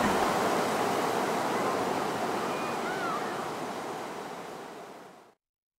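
Ocean surf washing onto a beach, a steady rush of noise that fades away and cuts off just over five seconds in.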